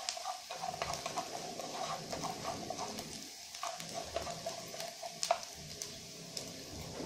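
Diced sausage frying in a nonstick pan with a light sizzle, stirred with wooden chopsticks that click and tap against the pan, one knock louder than the rest a little past five seconds in.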